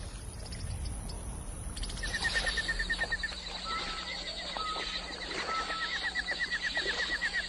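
Animal calls: from about two seconds in, a fast trill of short repeated high notes, with three short level whistles in between, over a steady high hum.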